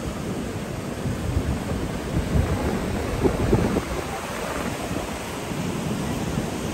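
Wind buffeting the microphone in uneven low gusts, over the steady wash of ocean surf.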